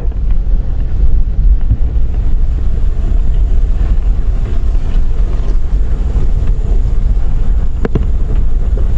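Pickup truck in four-wheel drive crawling through a creek bed: a steady low rumble with wind buffeting the microphone. A single knock about eight seconds in.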